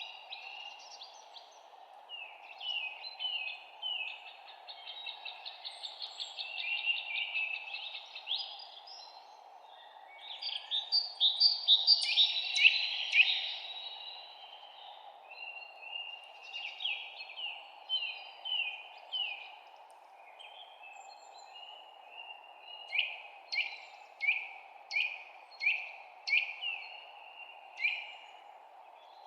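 Several songbirds chirping in quick runs of short, sharp notes, busiest and loudest about halfway through, over a steady low hiss of background noise.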